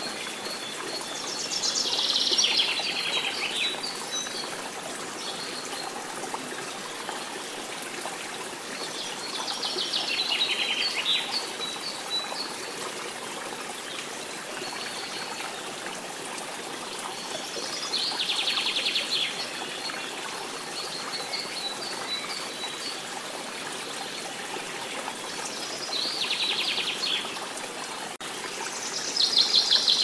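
Running stream water, with a songbird repeating a short, rapid trilled song five times, about every eight seconds.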